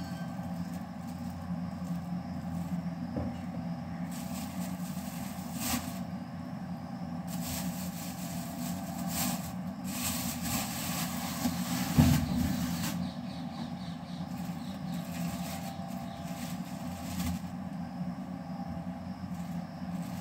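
Clear plastic spice bags rustling and crinkling as they are handled, in stretches through the middle, over a steady low hum. A single sharp knock about twelve seconds in.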